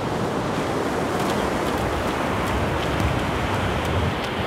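Steady rushing of ocean surf washing up the beach, mixed with wind.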